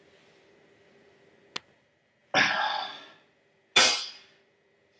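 A person coughing twice, about a second and a half apart, after a single light click.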